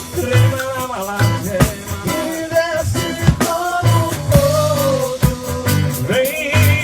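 Band music with a drum kit, a bass line and a wavering melody line over them.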